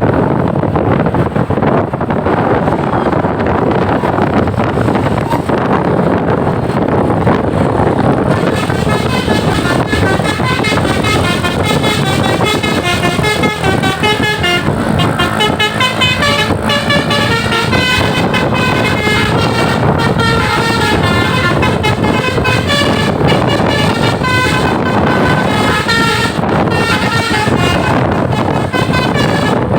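Steady rushing road noise, then from about eight seconds in a tour bus's Basuri telolet horn plays a quick tune of changing notes, going on with short breaks over the engine and road noise.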